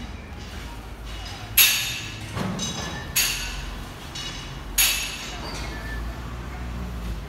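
Lat pulldown machine's weights clanking as they set down and lift with each repetition, three metallic clanks about a second and a half apart, each ringing briefly.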